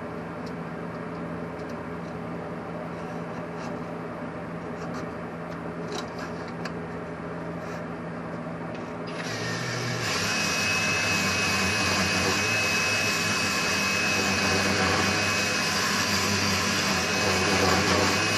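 Power drill spinning a cylinder hone inside the Yamaha DT250's two-stroke cylinder bore, running steadily at first with a few clicks, then louder with a steady whine from about nine seconds in. It is putting a cross-hatch finish on the bore.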